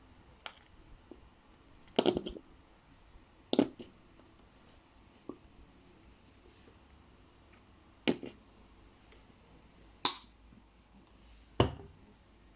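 About five sharp knocks and clicks, spaced irregularly, like small objects being handled and set down, against a quiet room background.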